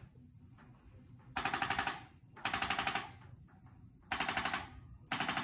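Handheld electric chiropractic adjusting instrument firing against the neck and upper back in short bursts of rapid rattling taps, each burst well under a second. Three bursts come about a second apart, and a fourth starts right at the end.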